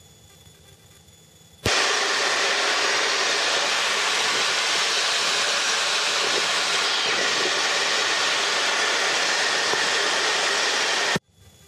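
Steady hiss of radio static in the helicopter's headset audio, switched on abruptly with a click about two seconds in and cut off just as abruptly with a click near the end.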